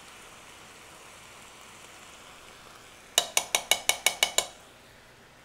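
A metal spoon tapped rapidly against the rim of a small glass jar, about nine ringing clinks in just over a second, a little past halfway, knocking the curry oil off the spoon. Under it, a faint steady sizzle from the frying pan.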